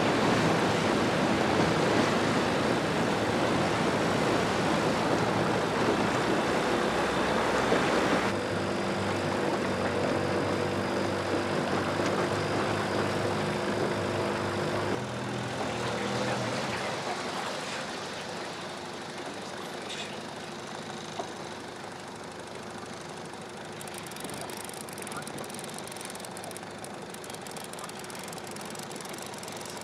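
Small tiller outboard motor running as the boat moves, with wind and water rushing at first. Partway through, the sound drops to a quieter, steady engine hum.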